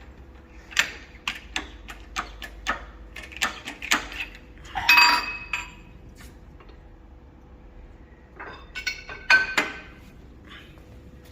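Metal-on-metal clinks and knocks of steel tools and parts being handled: a run of sharp taps, a louder ringing clank about five seconds in, then another cluster of ringing hits near the end.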